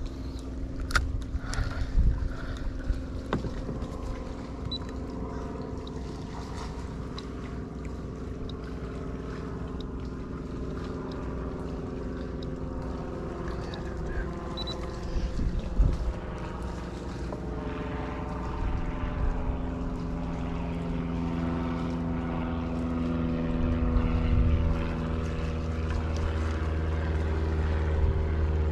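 Motorboat engine running as a steady drone, its pitch slowly rising and the sound growing louder over the second half. A few sharp knocks come in the first few seconds.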